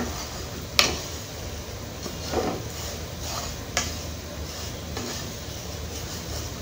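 Wooden spoon stirring laccha semai vermicelli with sugar in a nonstick frying pan: soft scrapes through the dry strands, with two sharp knocks against the pan, about a second in and again about three seconds later.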